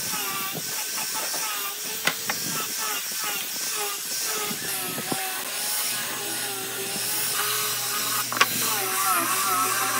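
Angle grinder with a sanding disc running and sanding wood: a steady hissing grind with a whine that wavers in pitch as the disc is pressed into and eased off the piece, with a few light knocks.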